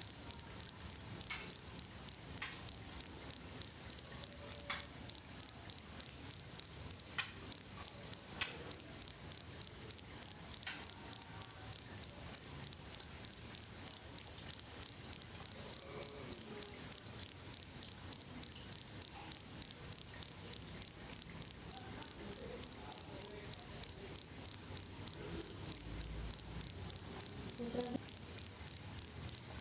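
Cricket chirping steadily: one high-pitched trill repeating in even pulses, about three a second.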